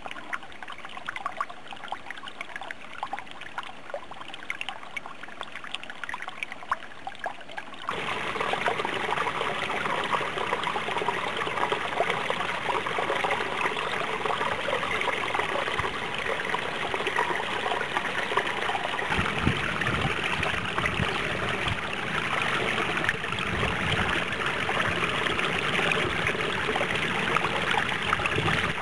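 Small mountain stream trickling and splashing over rocks in a steady stream of water sound. About eight seconds in it becomes louder and fuller.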